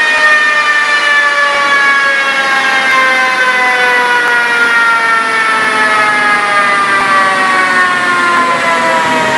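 Turbocharged Honda B18 four-cylinder on a chassis dyno, its high-pitched note falling slowly and steadily as the engine winds down after a pull.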